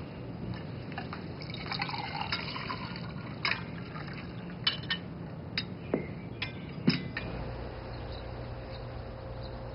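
Tableware at a breakfast table: a drink poured from a glass carafe into glasses, with light clinks of glass and china. About seven seconds in, the clinks stop and a steady low hum takes over.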